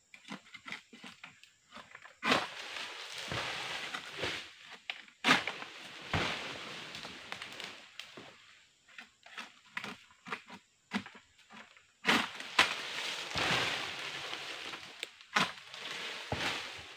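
Long-pole harvesting sickle (egrek) cutting into an oil palm crown. Sharp cracks as the blade bites are followed twice by a few seconds of rustling and scraping palm fronds, with separate knocks in between.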